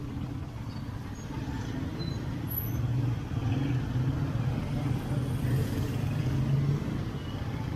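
Motorcycle engine running steadily on the move, a constant low hum under road noise.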